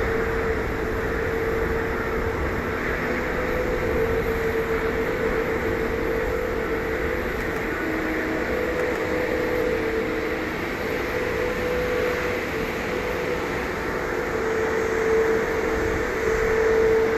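Jet engines of a Boeing 777-200ER airliner landing, a steady rushing noise with a constant tone running through it.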